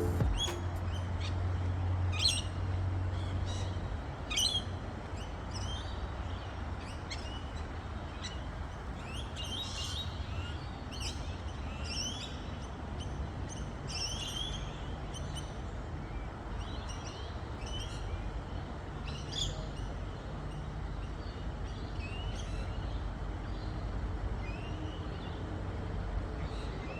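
Several birds chirping and singing in many short calls and trills throughout, over a low steady rumble.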